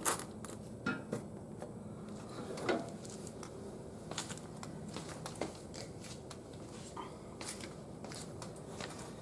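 Scattered light clicks and knocks of hands handling the oil drain hose, can and tools, with the loudest knock right at the start.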